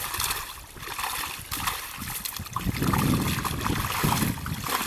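Shallow pond water splashing and sloshing as a person wades and bends down into it, with scattered small splashes, heavier about halfway through.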